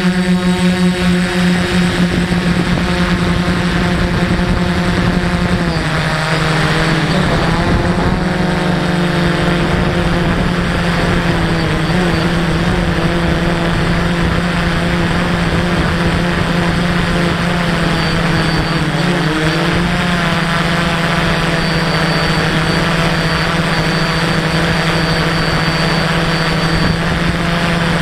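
DJI F450 quadcopter's four electric motors and propellers buzzing steadily in flight, heard up close from the drone itself. The pitch drops slightly about six seconds in and wavers briefly near twenty seconds.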